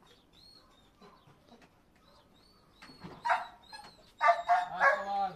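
A dog barking: a few short barks about three seconds in, then a rapid run of louder barks near the end, at a quad bike it dislikes. Faint bird chirps come before the barking.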